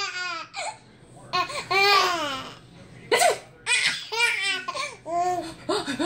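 A baby laughing in bursts, with a woman's fake sneeze: a drawn-out 'ahh' and then a sharp 'choo' about three seconds in.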